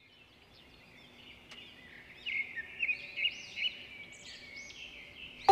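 Bird-like chirping over a steady high-pitched buzz, fading in from near silence; sharper, louder chirps come in repeatedly from about two seconds in.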